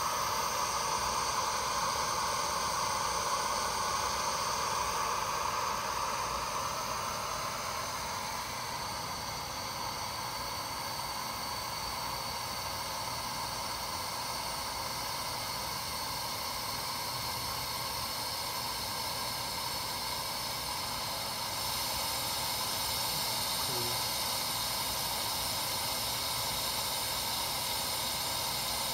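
Steady hiss of hot gas blowing from the Finetech Fineplacer Core rework station's heating head while a BGA chip reflows. The hiss turns brighter and slightly louder about three quarters of the way through.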